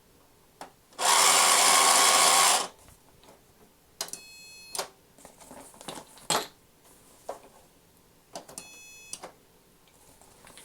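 Vintage Fisher-Price toy cash register at work: a loud buzzing whir lasting under two seconds, then two short electronic beeps about four seconds apart, with light plastic clicks and knocks between them.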